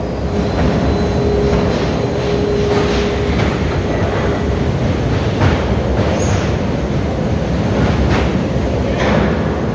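Heavy industrial plant machinery running: a loud, steady rumble with a few short, sharp noises scattered through it and a thin steady hum during the first few seconds.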